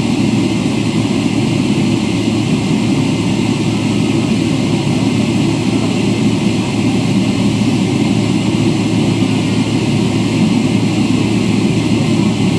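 Airliner jet engines running with a steady, even rumble.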